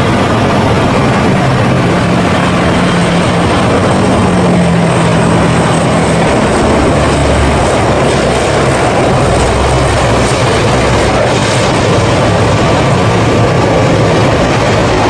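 C-130 Hercules four-engine turboprop running loud and steady, with a low propeller hum that fades about six seconds in while the broad engine noise carries on.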